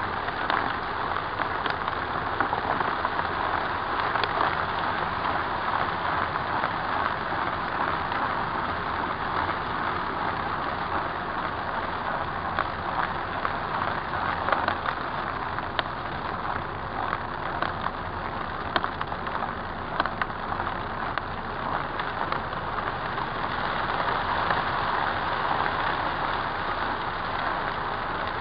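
Shark DuoClean upright vacuum cleaner running steadily on carpet as it sucks up a pile of dry crunchy debris, with frequent small crackles and clicks as the bits rattle up through the cleaner head.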